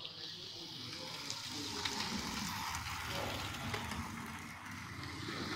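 Model train running along the layout's track: a steady rushing whir with a few faint ticks.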